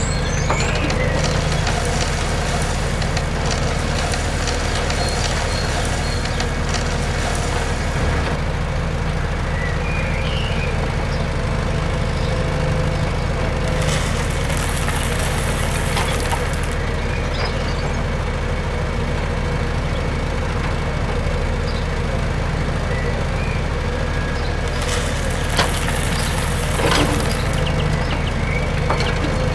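Toy remote-control excavator's motors running with a steady hum, while gravel pebbles pour and rattle into a plastic toy trolley in three spells: at the start, about halfway through, and near the end.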